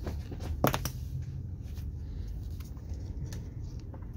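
Lexan window pane and its frame being handled and pushed into place, giving scattered clicks and knocks, with one sharp knock early on, over a low steady hum.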